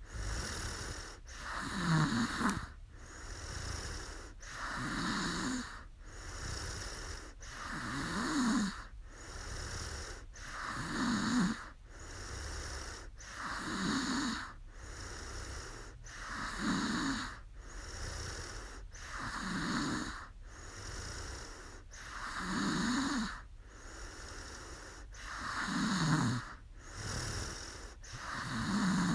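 A woman snoring in deep sleep in a steady rhythm, about one breath every three seconds: a low, rattling snore alternating with a breathy rush of air.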